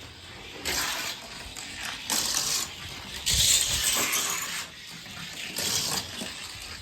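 Johnny Lightning Plymouth Satellite die-cast car rolling down a toy race track, its wheels hissing and rattling on the track in four surges, the longest and loudest about three and a half seconds in.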